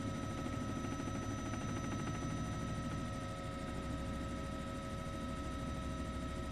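Steady drone of a helicopter, a low rumble with several steady whining tones above it.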